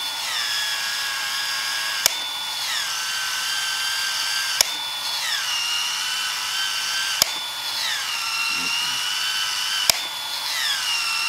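Milwaukee M18 ProPEX cordless cold expansion tool running continuously as it expands the end of a 1¼-inch PEX-A pipe. There is a steady motor whine with a sharp click about every two and a half seconds, and the whine dips in pitch after each click as the head cycles.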